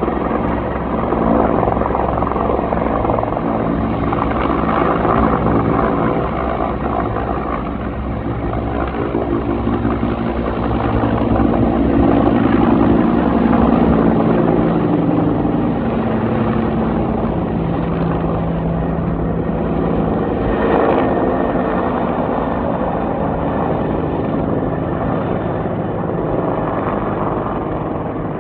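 Helicopter flying nearby: a continuous engine and rotor drone that swells a little around the middle.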